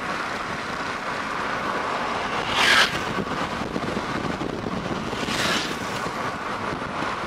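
Steady road and engine noise inside a moving car, with two brief whooshes, a little under 3 seconds in and again about 5.5 seconds in.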